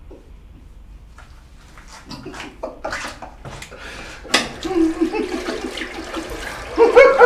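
Water running and splashing in a tiled toilet room, starting about two seconds in and growing louder, with a sharp knock about four seconds in.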